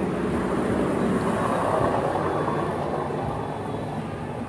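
Steady motor-vehicle traffic noise with engine hum, swelling a little around two seconds in as a vehicle goes by.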